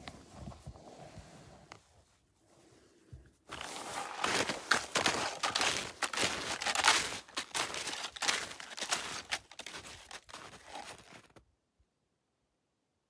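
Loud crackling, crunching noise close to the microphone, lasting about eight seconds, after which the sound cuts out completely.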